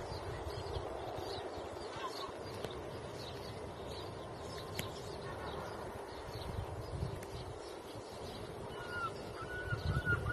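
Morning birdsong: many small birds chirping in short scattered calls over a steady low rumble, with a held, whistle-like call joining in near the end.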